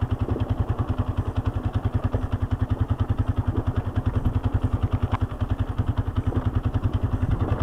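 Quad bike's engine running steadily with an even, rapid putter while it heads down a steep dirt track.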